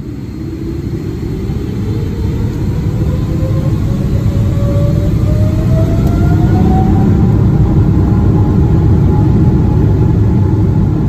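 Jet engines spooling up: a whine that rises steadily in pitch over a heavy rumble. It grows louder through the first few seconds and then holds steady.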